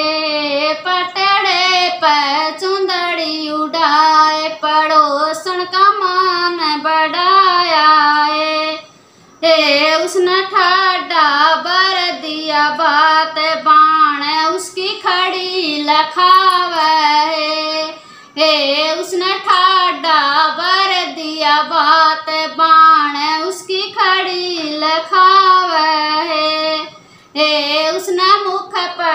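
A woman singing a Haryanvi folk song unaccompanied, in a melismatic, wavering voice, breaking off briefly three times between lines.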